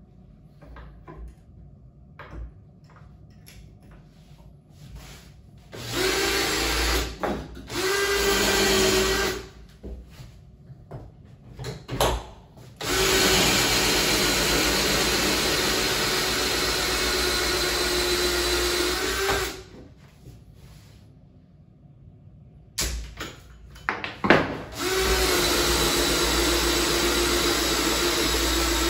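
Cordless drill driving a tube-cutting jig through a bamboo tube, running with a steady whine in bursts: two short runs, a long run of about six seconds, then another from near the end. Handling clicks and knocks come between the runs.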